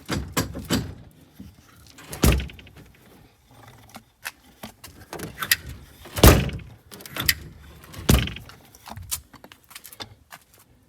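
MCI bus door being swung and pushed shut to test whether it now closes and latches after its collision damage was jacked out. It gives a series of heavy thuds, the loudest about two and six seconds in, with metallic clicks and rattles between them.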